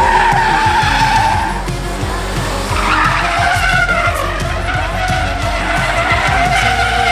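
A van's tyres squealing in a wavering tone as it slides sideways in a drift, over its engine working hard.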